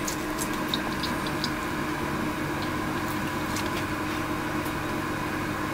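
Kitchen knife slicing cooked char siu pork on a plastic cutting board: a few faint ticks and soft cuts over a steady background hum.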